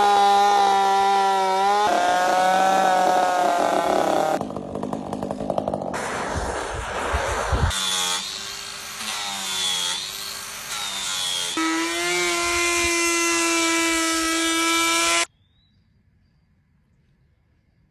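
Chainsaw running at high revs and cutting wood, its pitch shifting and changing abruptly several times as the sound jumps between cuts. It stops suddenly about fifteen seconds in, and near silence follows.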